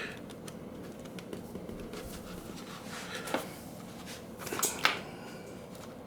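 Low room tone with a few small handling noises from the parts of a digital camera being fitted back together: one click about three seconds in, then a short rustle ending in a sharper click a little before five seconds.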